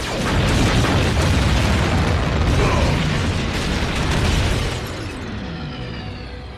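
Explosion sound effect from an animated battle: a loud, dense blast that goes on for about five seconds and then dies away, with music coming in near the end.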